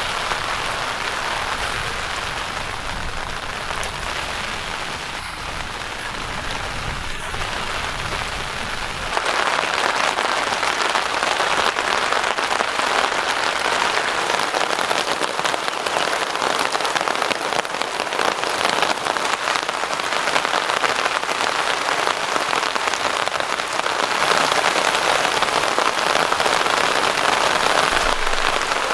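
Heavy rain falling steadily. About nine seconds in, a low rumble under it drops away and the rain hiss grows louder.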